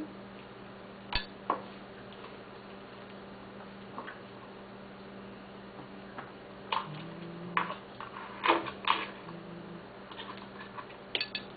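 A few sharp clicks and light clinks of small hard objects being handled, scattered irregularly, over a steady low hum.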